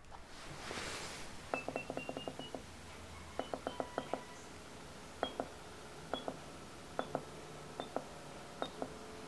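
Digital Stirplate magnetic stirrer's up/down control buttons being pressed, each press a click with a short high beep, stepping the speed 100 RPM at a time. A quick run of about eight presses comes first, then single or paired presses about once a second, the beeps creeping higher in pitch.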